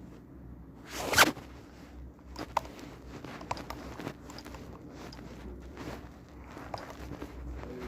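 A short ripping sound about a second in, then scattered light clicks and crackles.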